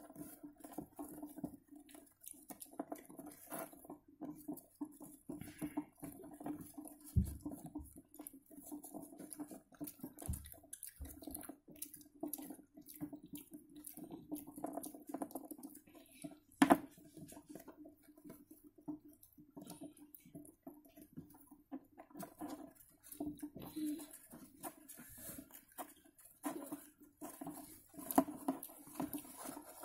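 Djungarian dwarf hamsters gnawing and scrabbling at a walnut on a plastic cage floor: a run of small scratchy clicks and patter over a steady low hum. Two dull knocks come about 7 and 10 seconds in, and one sharp click about 17 seconds in.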